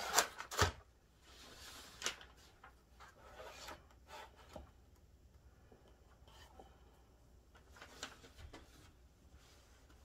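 Handling noise from a painted canvas being tilted and shifted by hand on its cardboard support and plastic sheeting: a quick cluster of knocks in the first second, then scattered rubbing and light taps.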